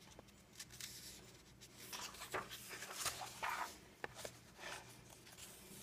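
Faint rustling and soft clicks of paper pages of a coloring book being handled and turned.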